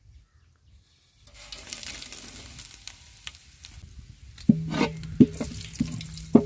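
Mutton and masala frying in a pan, a sizzle that starts about a second in. In the second half a metal ladle stirs and knocks against the pan about once every two-thirds of a second.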